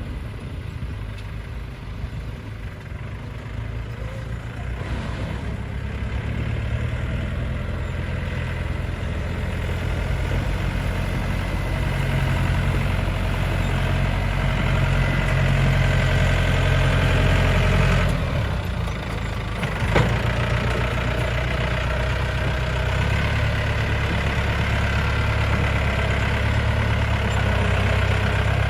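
Tractor engine running steadily, growing louder over the first ten seconds or so, with a brief drop about eighteen seconds in and a sharp click about twenty seconds in.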